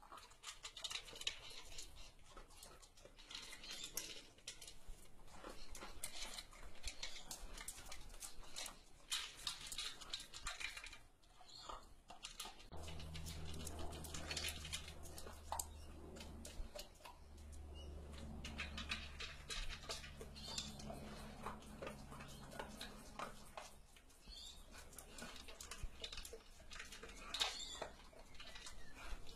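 A dog eating from a plastic slow-feeder bowl: a steady run of small clicks and rattles as it noses and crunches the food among the bowl's ridges. A low hum comes in for about ten seconds in the middle.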